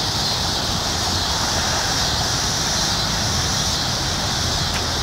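Steady outdoor background noise: wind rumbling on the microphone under a constant high-pitched hiss.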